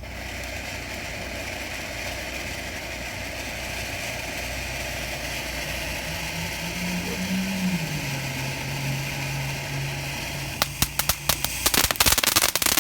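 Consumer fountain firework hissing steadily, then breaking into rapid crackling about ten seconds in. A passing vehicle's engine hum rises and then drops in pitch midway through.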